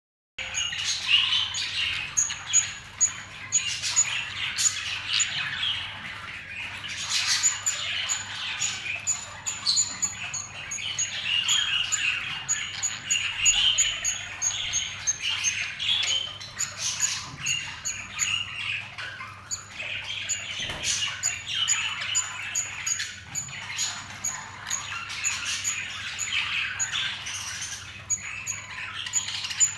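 Budgerigars chattering without a break, a busy run of quick chirps and squawks, while one budgie feeds the other beak to beak.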